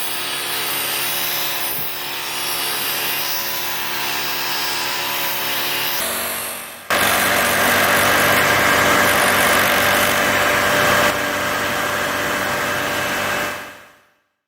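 A lathe-driven 12-inch disc sander running with dust extraction on, with wood being sanded against the spinning disc. About seven seconds in, a cut brings louder, heavier sanding, which then fades out near the end.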